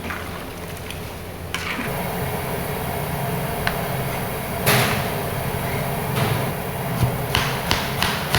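Kitchen cooking sounds: scattered knocks and clatters of utensils against cookware over a steady low hum, with a quick run of several knocks near the end.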